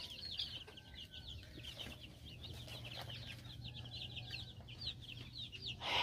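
A flock of young chicks peeping: many short, high, falling chirps overlapping one another.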